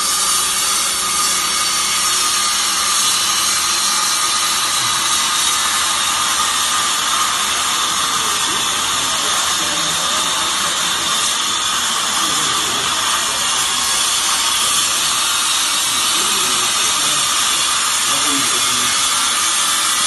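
Hydraulic fibre baler's motor and pump running with a steady high-pitched whine and hiss.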